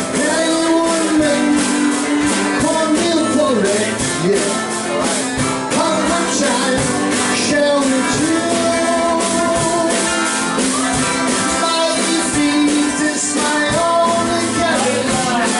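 Live band music: an acoustic guitar strummed with a drum kit keeping a steady beat, and a man's voice singing over it.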